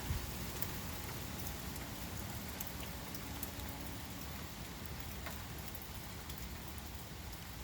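Steady heavy rain falling, with scattered sharp drip ticks and a low rumble underneath, and a brief thump right at the start.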